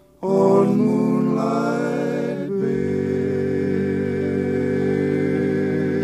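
Music: a voice singing over instrumental accompaniment, coming in after a brief silent gap, then settling into a long held chord about three seconds in.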